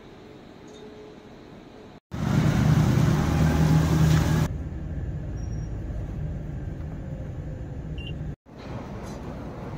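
Low room tone for about two seconds, then an abrupt cut to a Scania coach's diesel engine running with a steady low hum. A couple of seconds later it gives way to a quieter, even engine rumble heard inside the coach's cabin.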